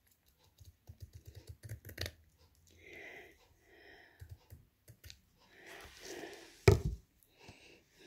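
Scissors snipping and working along a strip of rhinestone banding, the stones clicking quickly against each other and the blades in the first couple of seconds, with soft rustling of the strip as it is handled. One sharp, louder click comes near the end.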